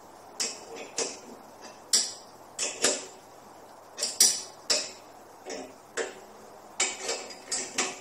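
Irregular sharp clicks and metallic ticks, about fourteen in all and sometimes in quick pairs, as the fasteners on a lawn mower's handle are tightened by hand.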